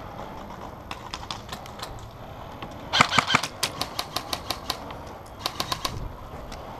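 Airsoft guns firing in quick strings of sharp snapping shots: a dense burst about three seconds in, then evenly spaced shots about four or five a second, and another quick string near the end.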